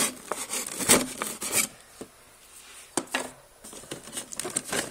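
A knife scraping and cutting at a cardboard toy box, mixed with rubbing of the box being handled: a run of quick scraping strokes, a lull, a sharp click about three seconds in, then more scraping near the end.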